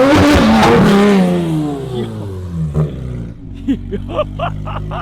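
Porsche 911 GT3 RS's naturally aspirated flat-six at full throttle, peaking at high revs, then its pitch falling away as the car pulls off. Later it settles to a steadier, lower note, with a quick run of short chirps over it.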